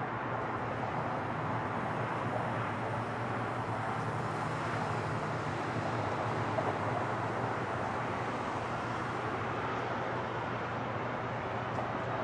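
Distant Boeing 747's four jet engines at takeoff thrust during the takeoff roll: a steady, even rush of noise with a faint low hum underneath.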